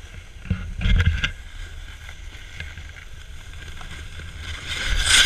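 Snowboard sliding and scraping over snow, with a steady low rumble of wind on an action camera's microphone. A few knocks about a second in, and a loud hissing scrape just before the end.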